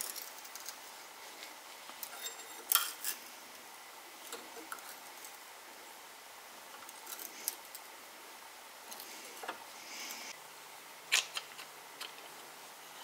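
Scattered light metallic clinks and clicks of hand tools against steel at a vise, the loudest about two and a half seconds in and again near the end.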